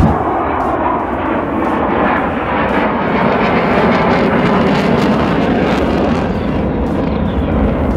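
Loud, steady jet aircraft engine noise, a dense roar that holds for the whole stretch.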